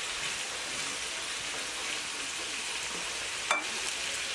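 Sliced onions, bell peppers and tomatoes frying in oil in a skillet, a steady sizzle as they cook down. A short squeak sounds about three and a half seconds in.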